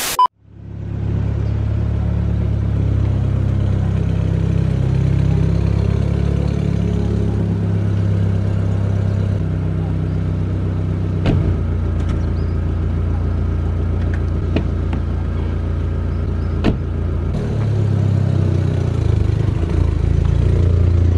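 SEAT Leon Cupra R's turbocharged four-cylinder engine idling steadily, after a brief static-like burst at the start. A few sharp clicks and knocks come through the middle, and the engine grows louder near the end as the car pulls away.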